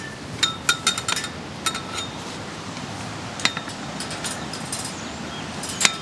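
Steel fence stretchers (Fence Fixer) clinking against taut fence wire as they are worked: a quick run of sharp metallic clinks with a short ring in the first two seconds, then single clinks about three and a half seconds in and just before the end, over a steady hiss.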